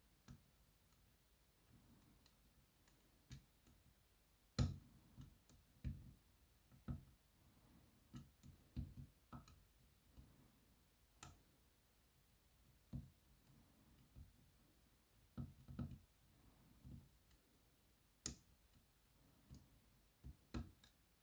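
Faint, irregular clicks and taps of a hook pick and tension wrench working the pins inside a BKS 88 pin-tumbler cylinder, roughly one every second or so, the loudest about four and a half seconds in.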